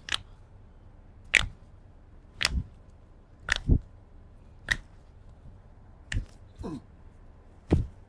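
A chiropractic adjustment giving a series of short, sharp cracks and pops, about one a second, as the patient's joints are manipulated.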